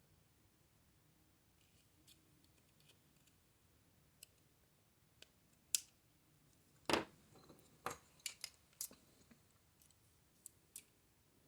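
Small hard clicks and snaps of a tool working corroded batteries out of a plastic toy's battery compartment. The loudest snaps come about six and seven seconds in, followed by a quick run of clicks.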